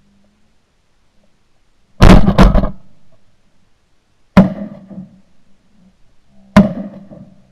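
Shotgun shots at flushing ducks: a quick volley of several overlapping shots about two seconds in, then two single shots a little over two seconds apart, each ending in a short fading echo.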